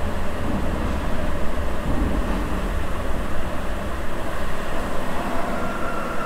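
Sapporo subway 9000 series rubber-tyred train running between stations, heard from inside the car as a steady deep rumble. A steady high tone comes in near the end.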